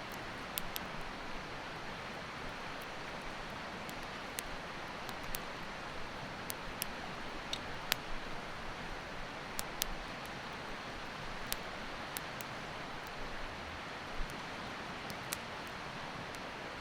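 Steady rushing of a mountain river, with irregular sharp pops and crackles from a campfire scattered throughout.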